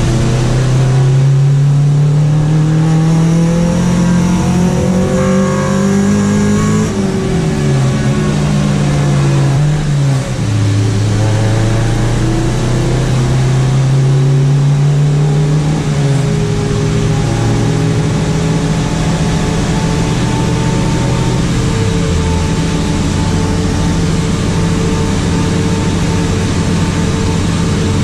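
Honda Civic hatchback's four-cylinder engine accelerating hard through the gears. Its pitch climbs, then drops sharply at upshifts about seven and ten seconds in, climbs again and then holds steady at speed, with a small dip near the end.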